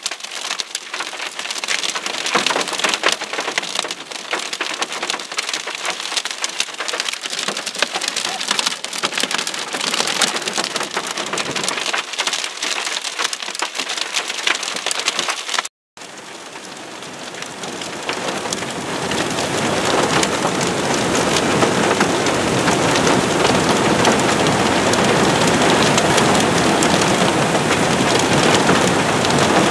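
Hail and heavy rain pelting down, a dense run of sharp irregular clicks over a rush of rain. After a short break about halfway, a steadier and louder rush of heavy rain builds over a few seconds and holds.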